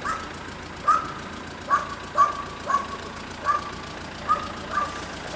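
Level crossing warning bells ringing: single dings about one to two a second on two slightly different pitches, irregularly interleaved.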